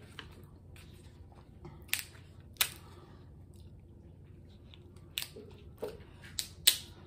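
A cooked king crab leg's shell cracked and pulled apart by hand: a few sharp snaps, one about two seconds in and a quick cluster near the end.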